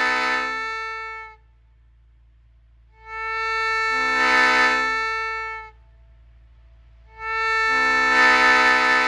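Railroad air horn blown in three blasts. The first is already sounding and dies away about a second in, the second lasts about two and a half seconds in the middle, and the third starts near the end and holds.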